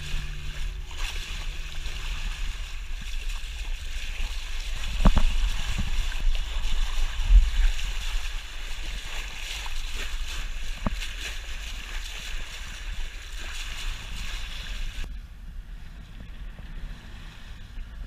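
Water rushing and splashing at a sailing boat's bow as it cuts through the sea, with a few sharp knocks and a low rumble under it. About fifteen seconds in the splashing stops and only a quieter, steady low rumble of wind on the microphone remains.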